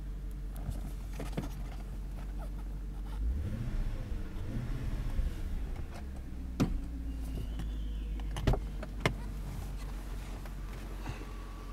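BMW E34 540i's V8 engine idling warm with no bad noise, briefly revved and let fall back about three seconds in. Three sharp clicks come in the second half.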